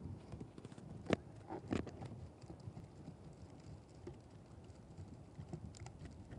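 Light clicks and knocks of close handling, with a sharper knock about a second in and another just under two seconds in, over a low rustling rumble.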